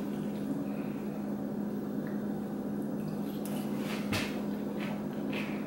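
A few soft clicks and scrapes of a fork in a glass salad bowl while eating, over a steady low hum.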